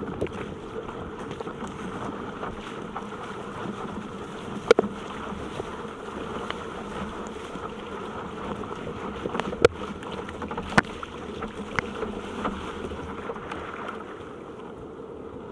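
Surfski being paddled through choppy sea: a steady muffled rush of wind and water on the deck-mounted camera, broken by a few sharp knocks, the loudest about five seconds in and twice near ten to eleven seconds.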